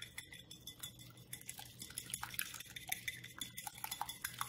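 A metal fork beating an egg in a ceramic bowl: rapid, uneven clinks of the tines against the bowl.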